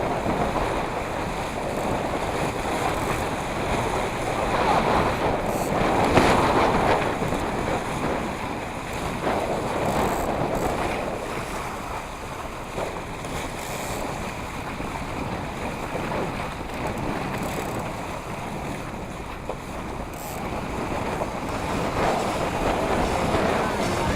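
Wind buffeting the microphone in uneven gusts, over water splashing and rushing along a small sailing boat's hull.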